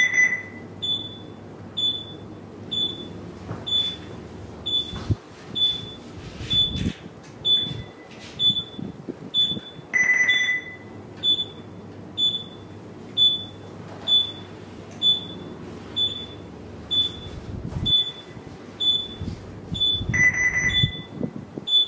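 Electronic alarm beeping on a ship's bridge simulator console: short high beeps about once a second, with a lower, longer tone near the start, about ten seconds in and near the end, over a steady low hum.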